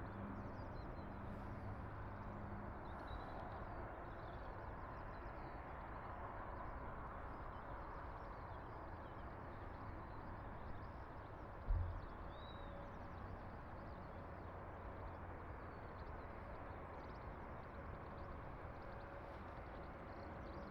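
Steady low drone of distant aircraft engines over outdoor airport background noise, with one sharp knock about twelve seconds in.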